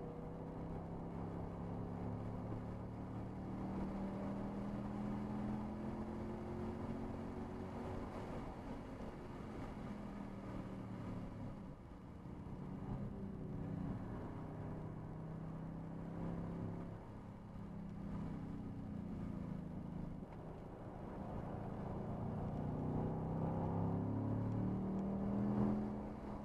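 Car engine under hard throttle heard from inside the cabin, its pitch climbing slowly with brief drops where it lifts or shifts about 12, 17 and 20 seconds in, then rising steadily near the end.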